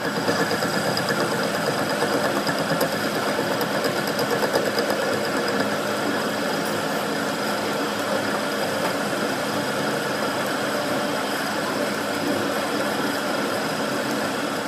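A machine running steadily, with an even mechanical hum and fine rapid vibration.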